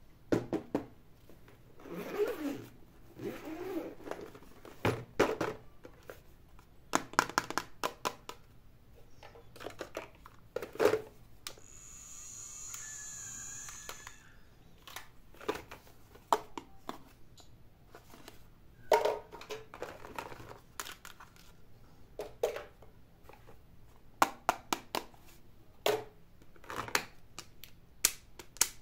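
Hands handling small plastic toys and their packaging: irregular crinkling and rustling with sharp clicks and knocks of hard plastic pieces. About midway there is a steady high hiss lasting about two seconds.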